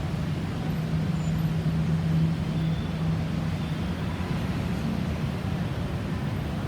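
Road traffic: a steady low engine hum over a noise haze, swelling slightly a second or two in, with no siren sounding.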